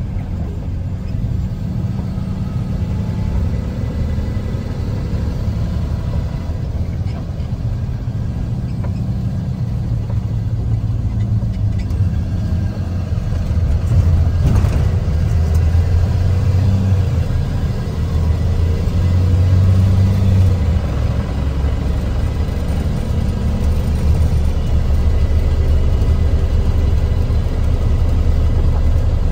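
Engine and tyre noise heard from inside a vehicle's cabin while driving on a rain-wet road: a steady low rumble that grows a little louder about halfway through.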